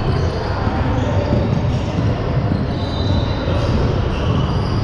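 Steady game din in an indoor gym: crowd chatter and court noise from a basketball game.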